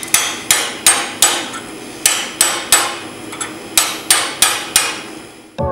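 Hand hammer striking the head of a slitting chisel held down in the split of a hot steel bar clamped in a vise, driving it in to cut away the rag left by the split. Sharp metallic blows with a short ring, about three a second, in three runs of four with brief pauses between.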